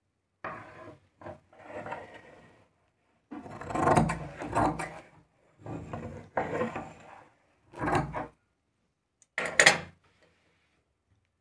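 Large tailoring shears cutting through fabric on a wooden table, with the cloth rustling as it is handled: a series of scraping, rustling cuts with short pauses between them.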